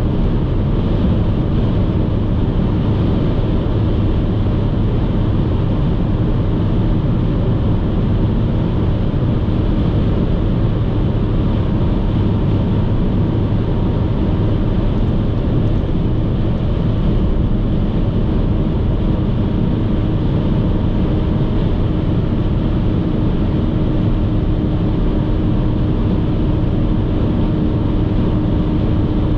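A car cruising at motorway speed: steady road and tyre noise with a low engine drone and a faint steady hum.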